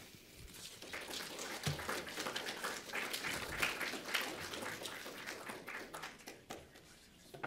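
Audience applauding after a speaker's introduction, a dense patter of many hands that thins out and dies away toward the end.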